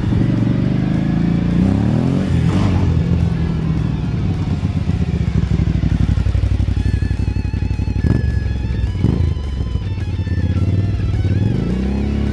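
Kawasaki KLV1000's V-twin engine through Mivv Oval Carbon exhausts, running with a rev up and back down about two seconds in, two short throttle blips near eight and nine seconds, and another rise in revs near the end. Music plays alongside.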